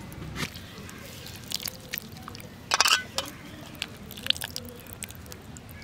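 Water splashing and dripping in a metal bowl as a hand swishes soaking neem flowers and squeezes a handful, the water running back into the bowl. Scattered small drips and splashes, with a louder burst of splashing about three seconds in.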